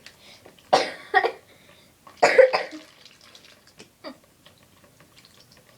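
A person coughing in a few short, sudden bursts, the strongest about two seconds in.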